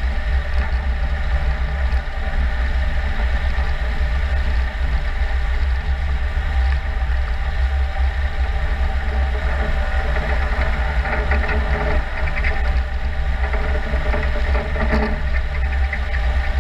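Jarcrac Dual tracked forwarder driving: its engine runs with a steady low drone while the rubber tracks roll over snow. A stretch of scraping noise comes between about ten and fifteen seconds in.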